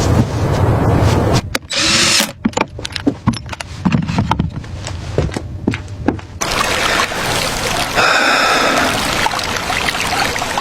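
Workshop tool sounds. A power tool runs steadily at first, then comes a run of sharp knocks and taps, then more steady tool noise with a short whine about two-thirds of the way through.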